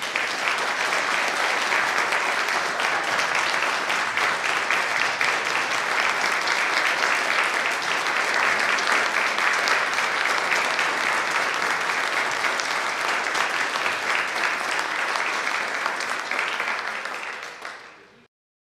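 Audience applauding, a long steady round of clapping that fades away near the end.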